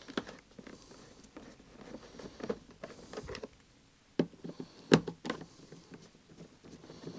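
Hand screwdriver undoing Torx screws from a plastic car door card: scattered light clicks and knocks of the tool and plastic, with a few sharper knocks a little over four and five seconds in.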